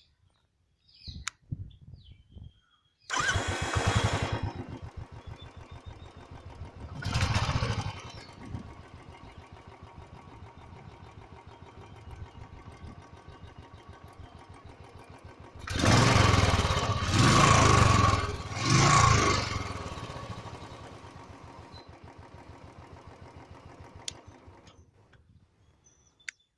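Royal Enfield Bullet's single-cylinder engine starting about three seconds in and settling into an even, pulsing idle. It is revved once, then three times in quick succession, before being switched off and dying away near the end.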